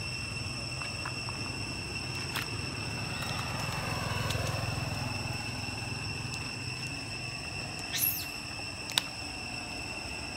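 Low rumble of a vehicle passing on the road, swelling about four seconds in and fading, under a steady high-pitched whine. A short high squeal comes about eight seconds in, and a sharp click a second later.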